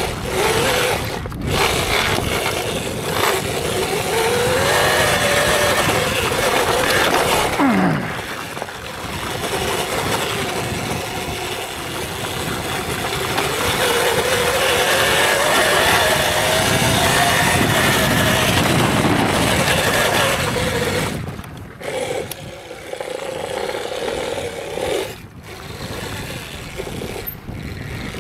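Electric dirt bike being ridden on a trail: the motor's whine rises and falls with speed over a steady rush of noise. The level dips briefly a few times near the end.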